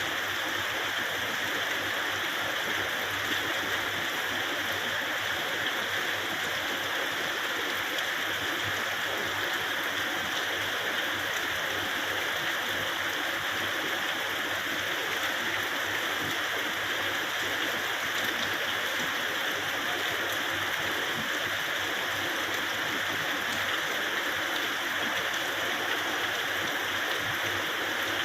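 Steady rain pouring down: a dense, even hiss of falling water that holds steady throughout.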